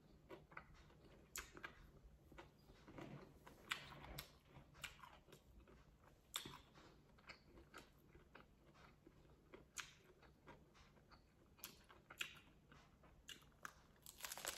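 Quiet close-up chewing of a lettuce-wrap taco: irregular crisp crunches and wet mouth clicks, with a fresh bite into the crunchy lettuce leaf near the end.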